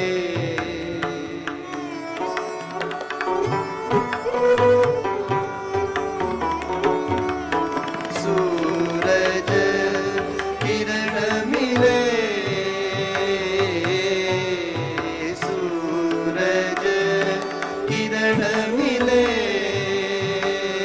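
Sikh Gurbani kirtan music: harmonium and tabla play a passage with no words between sung lines. A melody slides up and down in pitch over held notes, above a steady tabla rhythm.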